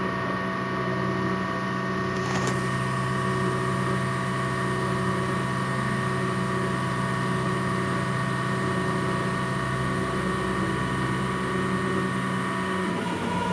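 Small CNC machine running: the steady whine of its motors held at one pitch, with a single tick about two seconds in. The pitch of the motors shifts near the end.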